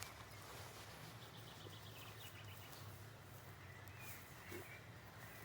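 Quiet rural outdoor ambience: a faint steady low hum with a few faint, short bird chirps.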